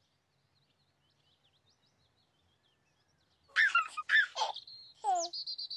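Faint bird chirps over near silence, then about three and a half seconds in a baby laughs loudly in a few giggles, ending on a falling squeal, followed by a high warbling trill.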